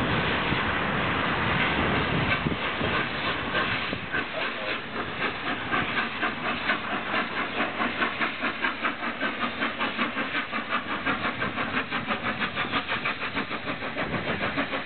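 Three-cylinder LNER Peppercorn A1 Pacific steam locomotive 60163 Tornado, moving slowly, begins working steam a few seconds in: steam hiss, then a regular rhythm of exhaust beats. Wind buffets the microphone before the beats start.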